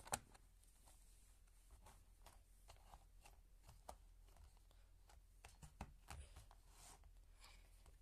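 Faint scattered clicks and rubbing of plastic interlocking building blocks being handled, with near silence between them.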